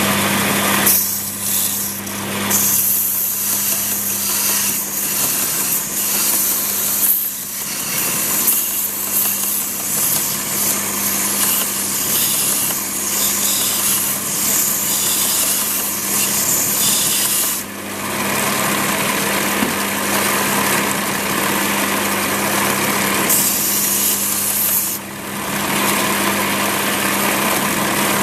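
Power sander running steadily while the steel knife blade is ground against it, the grinding rasp easing off briefly about 8, 18 and 25 seconds in as the blade is lifted away.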